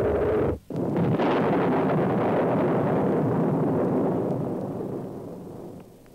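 Logo sound effect: a low rumble breaks off for a split second, then an explosion-like blast that holds for a few seconds and fades away near the end.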